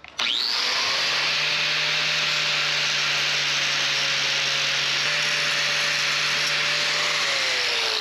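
Angle grinder starting up and grinding a steel hydraulic flange adapter to cut clearance so it will fit, the disc grinding the metal steadily. About seven seconds in it is lifted off and its whine falls as the motor winds down.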